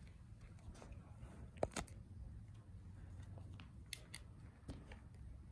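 Faint footsteps crunching on a floor littered with paint chips and debris: scattered sharp clicks and crackles, the loudest two together about a second and a half in, over a low rumble.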